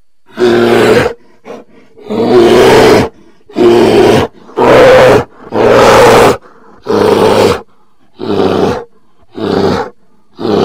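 A bear giving about nine short, loud calls in a row, each under a second long, about one a second, with brief silences between.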